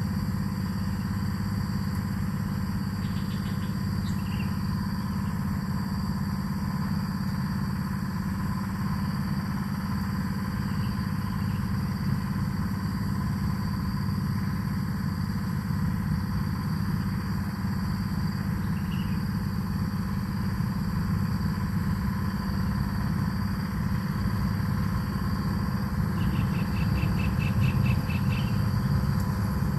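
A steady low hum, like a small engine running. Near the end comes a brief, fast high trill.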